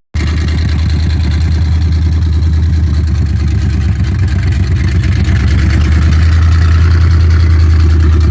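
1984 Chevrolet C10 pickup's engine idling loudly and steadily through open headers, with no mufflers.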